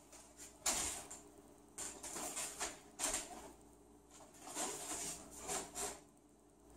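Rustling of a martial-arts uniform and bare feet shuffling on a hardwood floor as a person turns and steps into a new stance, heard as several short, soft swishes.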